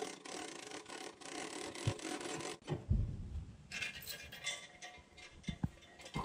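Rubbing and clicking of metal parts on a tractor-mounted branch logger's folding belt conveyor as it is handled into its upright storage position, with a dull thump about three seconds in and a sharp knock near the end.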